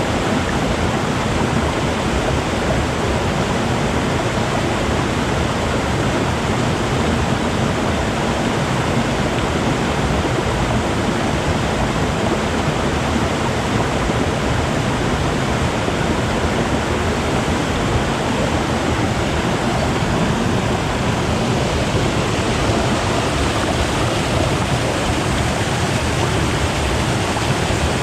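River water flowing and gurgling, a steady rushing that does not change.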